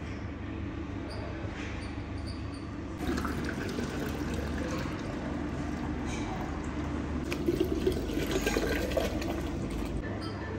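A red drink poured in a steady stream into glass pitchers, starting about three seconds in; the filling sound rises in pitch near the end as a pitcher fills.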